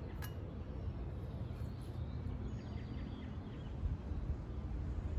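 Outdoor ambience: birds chirping faintly over a steady low rumble, with a single click just after the start.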